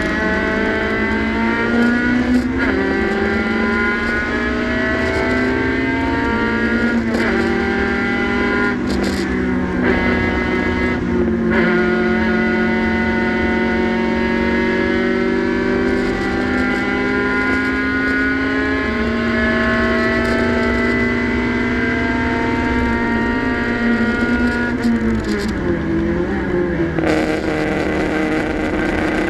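Hill climb race car engine heard from inside the cockpit under hard acceleration, its pitch climbing through each gear and dropping back at the shifts. About 25 seconds in the revs fall away as it slows for a bend, then pick up again.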